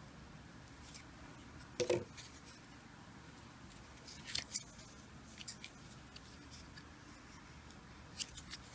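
Cardboard 2x2 coin holders with clear plastic windows rustling and clicking against each other and the fingers as they are shuffled in the hands: a few short crinkles, the loudest about two seconds in.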